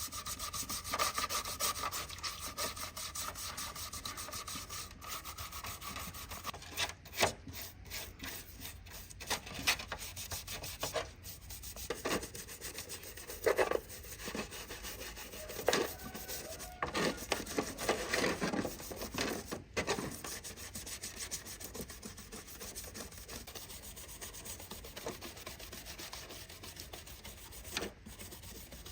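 Sanding: abrasive rubbed steadily over a surface, with a faint steady whine for the first six seconds and louder, uneven scrapes between about seven and twenty seconds in.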